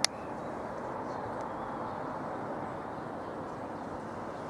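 Steady hum of distant road traffic, with a single sharp click right at the start.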